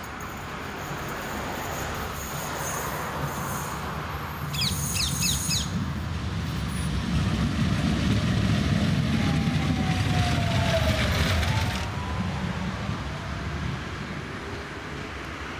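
Bombardier Flexity Swift tram running past on curved track: a rumble of wheels on rails that swells to its loudest as it goes by. As it passes, a faint whine falls and then rises in pitch. A few quick bird chirps come about five seconds in.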